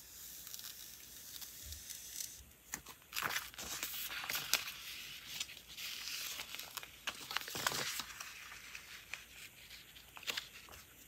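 Washi tape being peeled from the roll and torn by hand, crinkling as the strips are handled. It starts with a steady peeling hiss, then runs into a stretch of crackling tears and sharp clicks from about two and a half to eight seconds in, and ends with a few lighter clicks.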